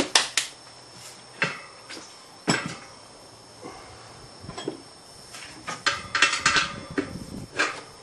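Metal tyre levers and a spoked motorcycle wheel clinking and knocking on a wooden workbench as the wheel is handled during a tyre change. There are separate knocks, then a quick run of clatter about six seconds in.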